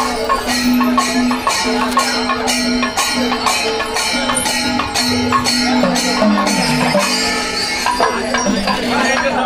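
Kerala temple processional music: cymbals clashing about twice a second with drumming, under long held notes of a melody that break and restart every second or so.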